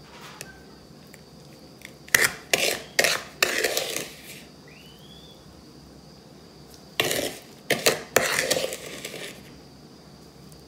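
A spoon scraping and tapping against a mixing bowl and a small glass jar as grainy sugar scrub is scooped and packed in. The sounds come in two runs of quick scrapes and knocks, about two seconds in and again about seven seconds in.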